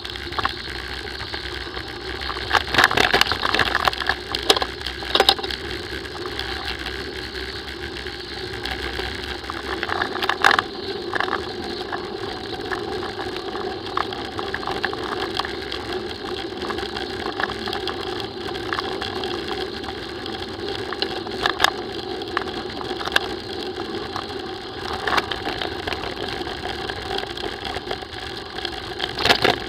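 Mountain bike rolling down a gravel track, recorded by a camera riding on the bike: a steady rolling noise from the tyres on the gravel, with repeated sharp knocks and rattles as the bike hits bumps. The knocks are loudest a few seconds in and near the end.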